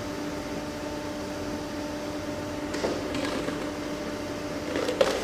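A steady machine hum holding a few fixed tones, with light knocks and handling clatter about three seconds in and a sharper knock near the end.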